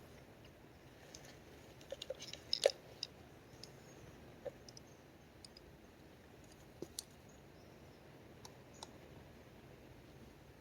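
Scattered light clicks and taps, with a quick cluster about two seconds in and a few single clicks afterwards, over a faint steady background hiss.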